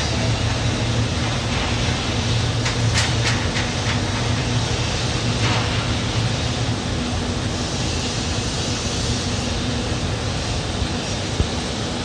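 Glass tempering furnace line running: a steady loud mechanical noise over a low hum, with a quick run of sharp clicks about three seconds in.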